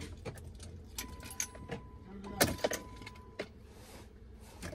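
Car keys jangling and clicking in the ignition of a car that has stopped starting. A steady electronic tone starts about a second in and holds for roughly two seconds.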